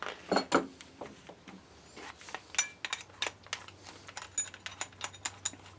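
Steel spade bits clinking and clicking as they are handled and set against each other and their plastic case: a quick run of small metallic taps, some with a short bright ring.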